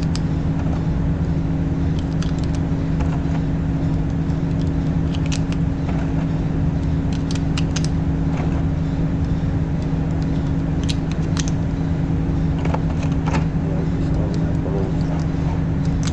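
A steady low mechanical hum with two constant tones, with a few light sharp clicks scattered through it. No gunshots are heard.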